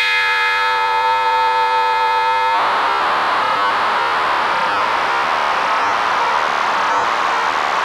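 Output of an RF NOMAD Eurorack shortwave receiver module with its tuning modulated by a triangle wave from another oscillator. A steady tone with many overtones switches abruptly, about two and a half seconds in, to a dense, static-like noise.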